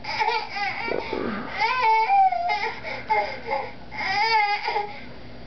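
Baby fussing: a string of short, high-pitched whining cries, loudest about two seconds in.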